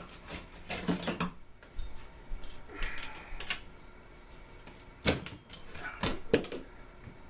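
Handling noises from a two-stroke leaf blower engine being taken apart: four short bursts of clicks and knocks as parts and tools are picked up and set down.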